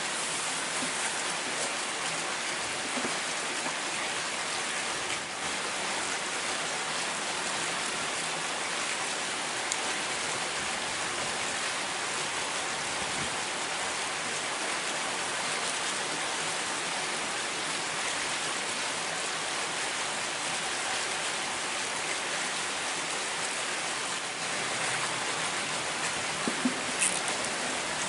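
Steady, even water noise, a hiss like rain on a surface, with a few faint clicks near the end.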